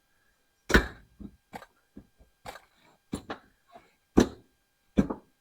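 About a dozen irregular sharp knocks and bangs on a truck's sheet-metal cab floor, the loudest about a second in and near the end. They come from work on the floorboard where a welded-on shifter mount has just been ripped out, tearing a hole.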